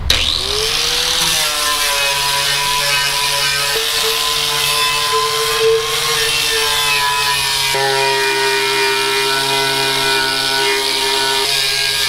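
Corded angle grinder spinning up with a rising whine, then running steadily as it grinds a rusty metal casting.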